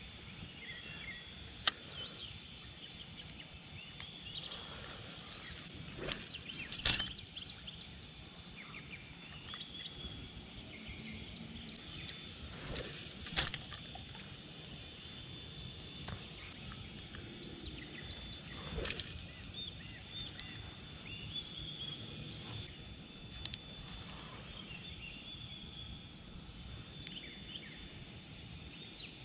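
Quiet outdoor ambience with birds chirping and a steady high tone. A few brief swishes and clicks from casting and handling a spinning rod and reel stand out.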